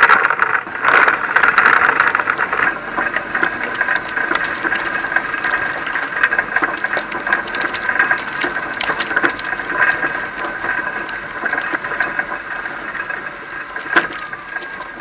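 Four-wheel drive vehicle driving slowly off-road, engine running under a constant rattling and clatter of small knocks, heard from a camera mounted on the vehicle. It is noisier for the first few seconds, and there is one sharper knock near the end.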